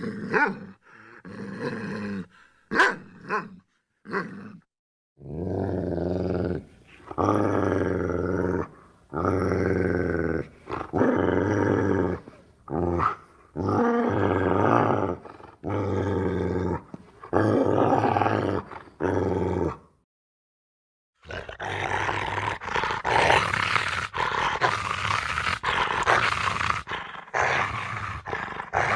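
Animal sound effects in sequence: a few short barks in the first seconds, then a run of drawn-out growls of about a second each. After a brief break near the middle, a harsh, noisy roar runs on.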